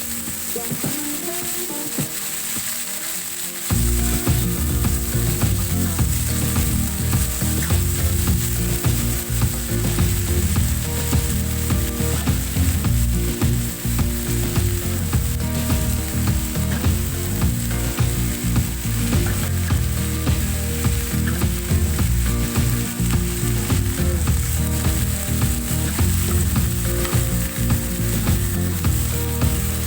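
Food frying and sizzling in a cooking pan, a steady hiss. About four seconds in, a louder rhythmic layer of low pitched tones with a regular beat joins it.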